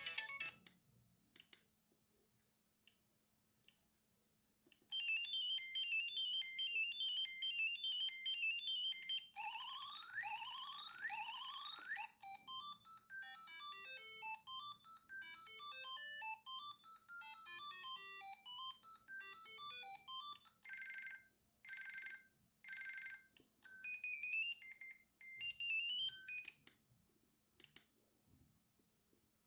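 Siemens CXT65 mobile phone playing several of its ringtones in turn through its speaker, separated by clicks. The sequence runs from a chirpy pattern of high notes, to a string of rising sweeps, a quick bouncing tune, four separate ring bursts and a short melody.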